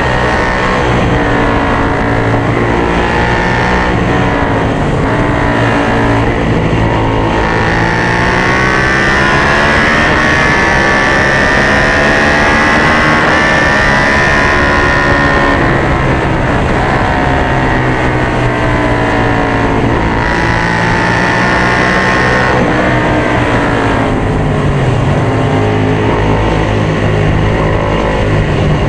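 Suzuki SV650's 645 cc V-twin engine under racing load, heard onboard with wind rush, its pitch climbing for several seconds at a time and dropping back several times as it is shifted through the gears.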